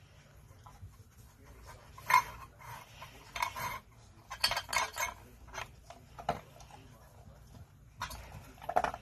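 Metal muffin tin clattering and scraping on a tile floor in a series of separate rattles as a Doberman noses and paws at it, pulling off the cloths covering its cups. The loudest clatter comes about two seconds in, with a run of them between three and five seconds and another near the end.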